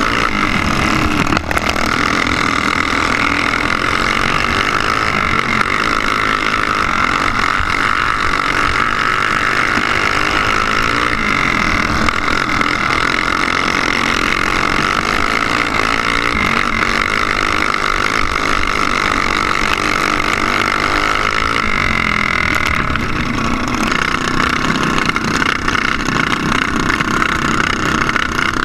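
Racing go-kart engine heard from on board the kart, running hard with a steady, loud buzzing note; the pitch dips and recovers briefly about three quarters of the way through.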